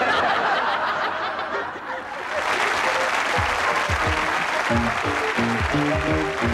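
Studio audience laughing and applauding, with the show's closing theme music coming in about three seconds in under the applause.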